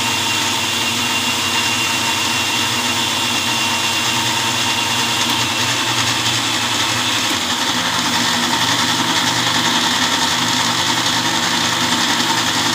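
Electric mixer grinder running steadily and loud, its stainless steel jar grinding raw mango pieces with water and spices into a thin, chutney-like paste. The motor's hum shifts slightly about seven seconds in.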